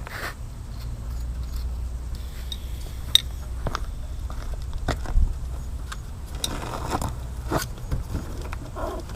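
Scattered sharp clicks and short light clatters of tools and car parts being handled under the hood, over a low steady rumble.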